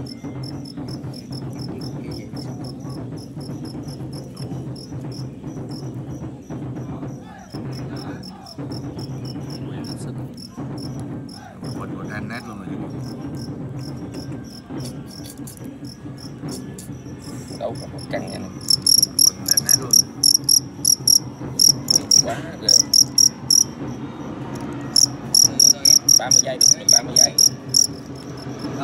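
Male fighting crickets stridulating. Faint rapid chirping runs through the first part, then loud, evenly pulsed chirping comes in two long runs from about two-thirds of the way in, with a short break between them, over a steady low hum.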